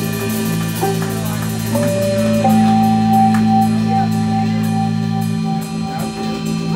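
A live organ combo playing: a Hammond B-3 organ holds long sustained chords over drums with steady cymbal strokes, joined by electric guitar and bass guitar. The lowest held note drops out a little past five seconds in.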